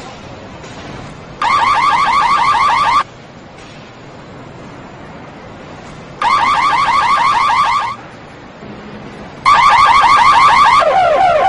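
Car alarm siren sounding in bursts of fast repeating rising chirps, three bursts of about one and a half seconds each. Near the end it switches to a lower-pitched chirping tone, cycling through its alarm patterns.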